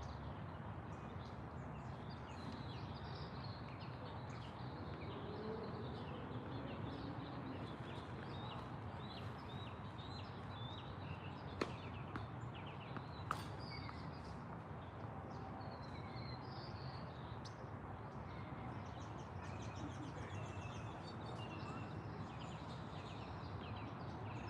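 Steady outdoor background noise with small birds chirping repeatedly, and two sharp clicks about a second and a half apart near the middle.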